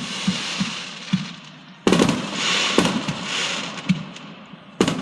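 Fireworks going off: a sharp bang about two seconds in, followed by dense crackling with scattered pops that fades, and another bang near the end.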